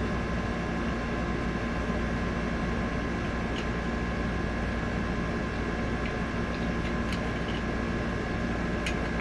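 Steady hum of room air conditioning, with a few faint light clicks from small pistol parts being handled.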